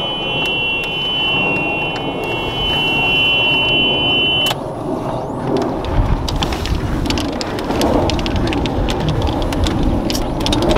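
Electric golf cart's warning buzzer sounding a steady high tone, which cuts off suddenly about four and a half seconds in as the cart is reversed out of a restricted area that locks it. The cart then moves off with a low rumble and many small clicks and rattles.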